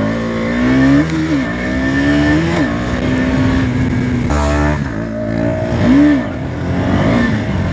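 Motorcycle engine revved hard for wheelies, its pitch climbing and dropping back about three times.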